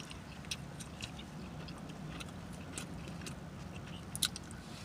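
Person chewing a mouthful of cold cut sub, with soft, scattered wet mouth clicks and smacks and one sharper click near the end.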